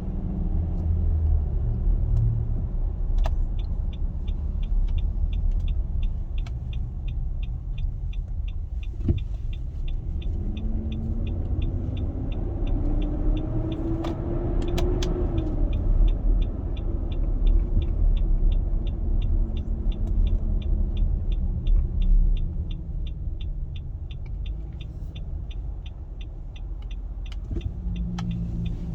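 2021 Nissan Armada's 5.6-litre V8 running with a steady low rumble, the loud engine noise the owner is showing; through the middle a pitched drone rises and then falls back, as with revs climbing and dropping. A regular light ticking, about twice a second, starts a few seconds in and carries on.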